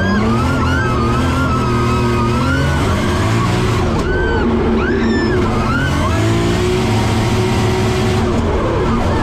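Professional drift car's engine revving hard, its pitch rising and falling through a drift, with high wavering squeals over it, heard from inside the cabin.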